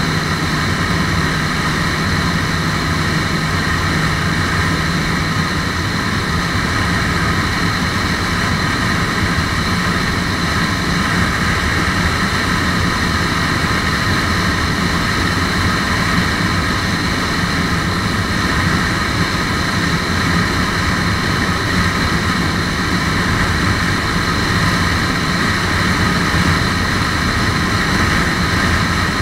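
Lifan KPR150's single-cylinder engine running steadily at high revs at sustained high speed, mixed with heavy wind rush over the microphone.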